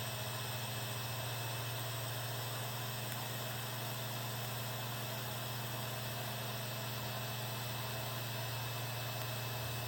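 TIG welding arc from an EWM Tetrix 230 AC/DC welder running at 72 amps: a steady hum with an even hiss, unchanging throughout.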